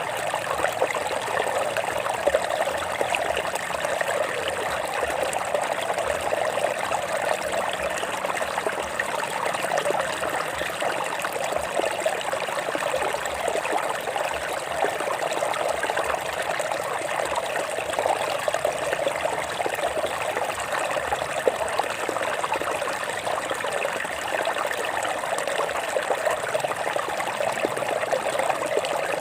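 Stream water trickling and splashing over rocks, a steady babbling flow.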